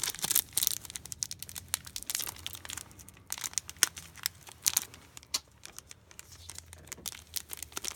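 Trading-card pack wrappers crinkling and tearing in irregular sharp crackles as a hard-to-open pack is worked at by hand without scissors.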